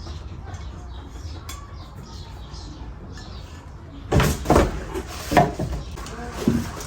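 Cooking pots and lids being handled: a few quiet seconds, then several sharp knocks and clunks from about four seconds in.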